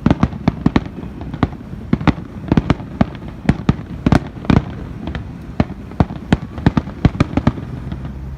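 Aerial fireworks bursting in a rapid, irregular volley of sharp bangs, several a second, each trailing a short echo; the bangs thin out near the end.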